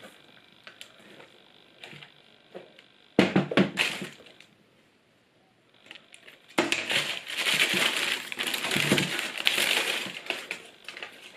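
Tissue paper rustling and crinkling as hands handle it and lift it out of a cardboard shoe box. There is a short rustle about three seconds in and a moment of complete silence, then louder, continuous crinkling over the last few seconds.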